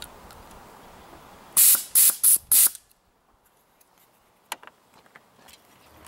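Four short blasts of compressed air hissing from a shop-air hose fitting in quick succession, followed by a sharp click and a couple of faint clicks.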